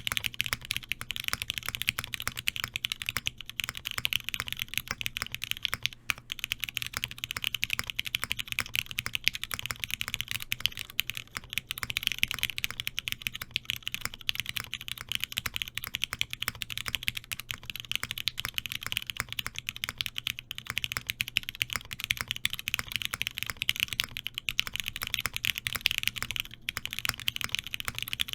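Continuous typing on a custom mechanical keyboard with broken-in, lubed Cherry MX Black linear switches in an aluminum plate, fitted with Korean black keycaps. The keystrokes come in a dense, unbroken stream.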